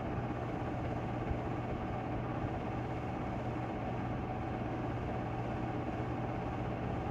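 Steady whir of an 8-mm film projector running, with a constant low hum, picked up on a home cassette tape recording.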